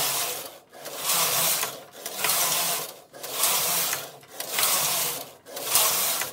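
Silver Reed punchcard knitting machine carriage pushed back and forth across the needle bed, knitting plain rows. About six passes, each a sliding mechanical run of about a second, with a brief pause at each turn.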